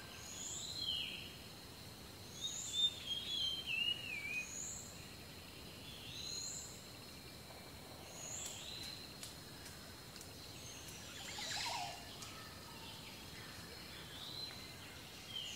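Woodland ambience of birdsong: one bird repeats a short chirped call about every second, and another sings a warbling phrase a few seconds in. A brief rustle comes about three-quarters of the way through.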